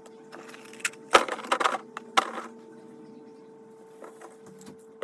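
Small fidget toys clattering and clicking as they are handled and dropped into a storage drawer, in two short bursts about a second and two seconds in, with lighter ticks around them.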